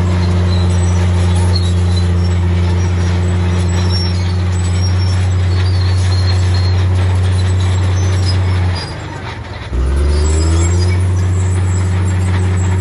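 Heavy diesel engine of earthmoving machinery running steadily under load. About nine seconds in it drops off for about a second, then picks back up with a rising pitch.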